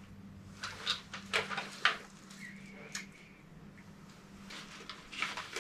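Handling noise of an airsoft rifle replica and tactical gear: a string of short sharp clicks and knocks, loudest about two seconds in, with a few more near the end, over a steady low hum.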